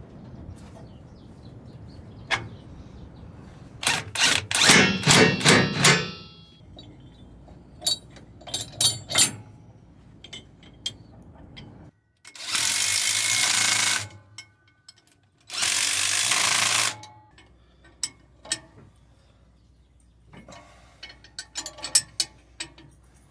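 Power-tool work on a combine: a rapid rattling run of strokes lasting about two seconds, then two steady hissing blasts of about a second and a half each, with scattered metal clicks and clanks between them.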